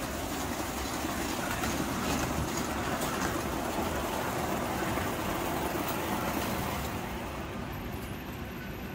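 Toy electric trains running on a model railway layout's track, a steady running noise of wheels and motors that eases a little near the end.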